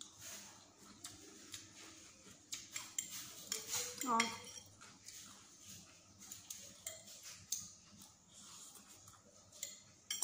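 Metal fork and spoon clicking and scraping against a ceramic dinner plate while eating, in many small irregular clicks, with one short rising squeak about four seconds in.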